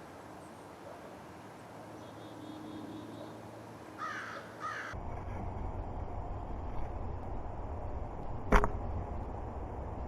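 A crow caws twice, about four seconds in. A steady low rumble then sets in, and a single sharp knock sounds near the end.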